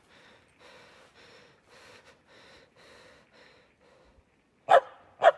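Faint rhythmic breathing or panting, a breath about every half second. Then a dog barks twice, loud and sharp, near the end.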